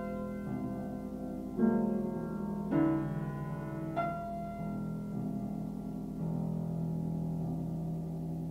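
Slow piano music: chords struck a second or so apart, each ringing out and fading, then a held low chord in the last couple of seconds.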